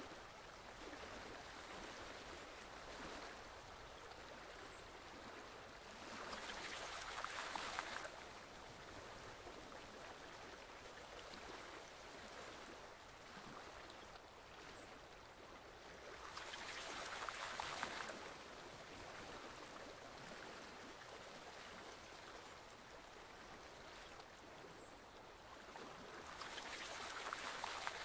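Forest stream flowing, a steady rushing of water that swells louder for a couple of seconds three times, about every ten seconds.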